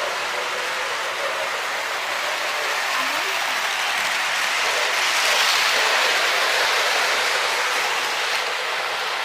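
Model train running on the layout's track: a steady rolling whir that grows louder about halfway through, then eases.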